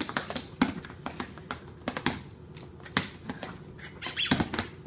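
A small dog's claws clicking and tapping irregularly on a hardwood floor as it hops about on its hind legs. Near the end the taps come thicker and louder, with a short pitched sound among them.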